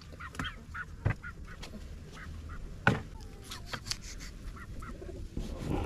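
Domestic chickens clucking, with a few sharp knocks; the loudest knock comes about three seconds in.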